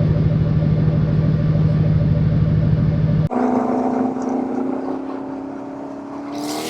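A car engine and exhaust running loud at one steady pitch for about three seconds. Then it switches suddenly to a higher pitch that creeps upward as it slowly fades, with a burst of noise near the end.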